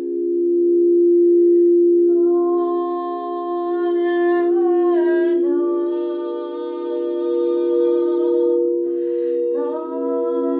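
Singing bowls ringing in a steady drone while a voice hums long held notes over them. The voice comes in about two seconds in, slides down to a lower note midway, breaks off briefly and returns on a new note near the end.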